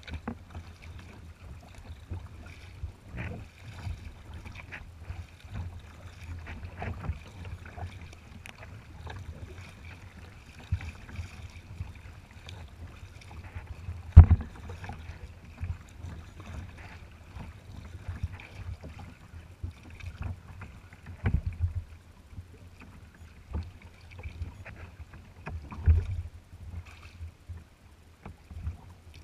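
Choppy water lapping and slapping against a sea kayak's hull as it is paddled, under a steady low rumble. Irregular knocks run through it, the loudest about halfway through and two more near the end.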